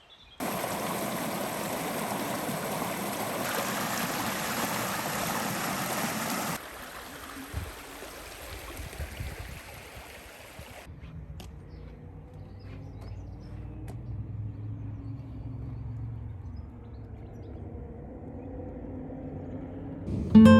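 Running water, a steady rushing that drops abruptly in level about six seconds in and again around eleven seconds, giving way to a lower, quieter rumble with a few faint clicks.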